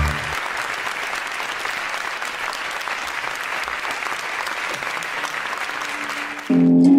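Audience applauding steadily, then music begins abruptly near the end.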